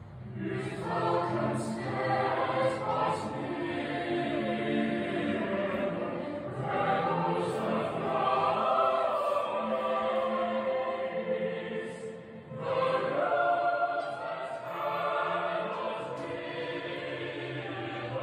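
Background music: choral singing in long held notes, with a short break about twelve seconds in.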